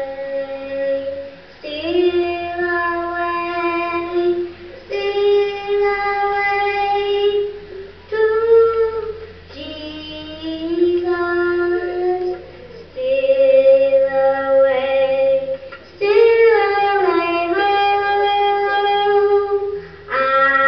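A young girl singing solo into a microphone with no accompaniment, in long held notes and short slides between them, phrase by phrase with brief pauses for breath. The voice is a playback of a recording on a computer, filmed off the screen.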